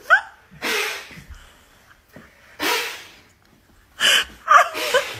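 A man blowing short hissing puffs of air at a cat's face: two breathy bursts a couple of seconds apart, then a quicker flurry of puffs with a brief squeak near the end.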